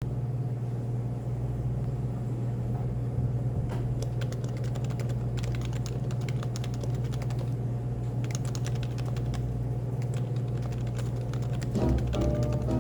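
Typing on a Happy Hacking Keyboard: quick runs of key clicks over a steady low café background hum, with music coming in near the end.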